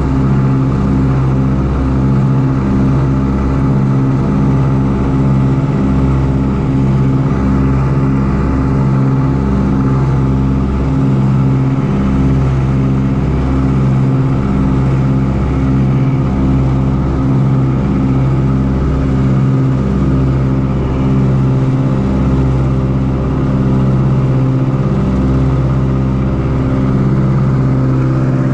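Ford Tri-Motor's radial engines droning steadily in flight, heard from inside the cabin, loud, with a slow, uneven throb in the low end.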